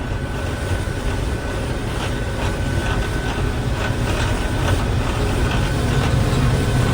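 Combine harvester running steadily while harvesting wheat, a deep engine drone with threshing and machinery clatter, and a faint steady high tone through most of it.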